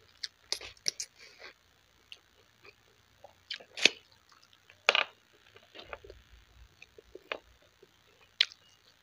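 Close-up eating sounds: chewing and wet lip smacks as a handful of rice and curry is eaten by hand. They come as an irregular scatter of short, sharp clicks, the loudest about four and five seconds in.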